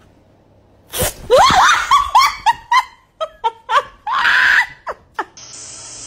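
A sudden high shriek about a second in, then high-pitched laughter in quick short bursts, about four a second. Near the end a hand-held spray bottle hisses steadily.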